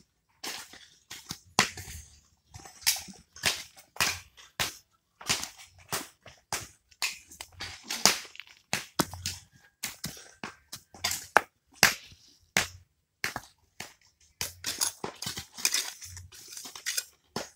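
Steel mason's trowel scraping and slapping cement mortar and clacking against stones as a rubble-stone foundation is laid, with stones knocking as they are set: a run of irregular sharp knocks and scrapes.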